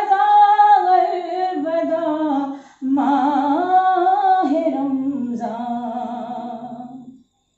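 A woman singing unaccompanied in long, held notes with a wavering pitch: two phrases with a short breath between them, the voice ending about seven seconds in.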